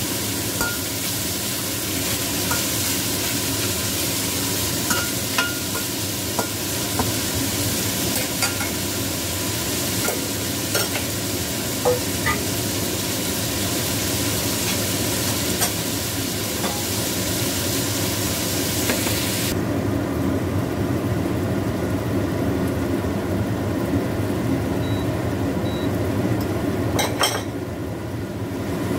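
Chicken pieces sizzling in oil in a stainless steel wok, with a spatula stirring and lightly tapping against the pan. About two-thirds of the way in the bright hiss cuts off suddenly, leaving a lower steady frying noise, with a single click near the end.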